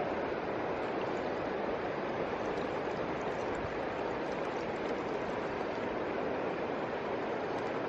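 Steady rush of running water, even and unbroken, with no distinct splashes.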